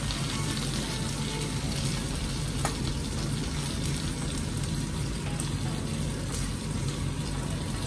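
Whole pomfret frying in a pan: a steady sizzle of hot oil with fine crackles and one sharper pop about two and a half seconds in.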